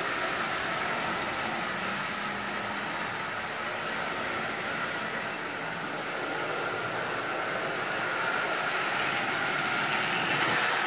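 Marx 999 toy steam locomotive pulling Lionel cars around three-rail tinplate track: a steady whir and rattle of motor and wheels, growing a little louder near the end as the train comes close. The locomotive is dirty and not yet cleaned or lubricated, and it is running, though far from perfect.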